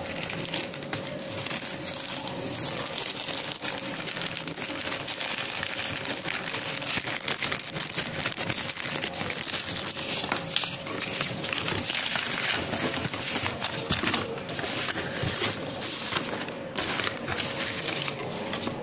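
Plastic wrapping and paper crinkling and rustling as a parcel is unpacked by hand, with a steady hum underneath.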